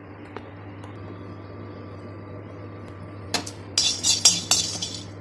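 Metal spoon scraping and clinking against a kadhai as whole spices are stirred while being dry-heated before grinding. A low steady hum at first, then rapid clinks and scrapes start a little over three seconds in.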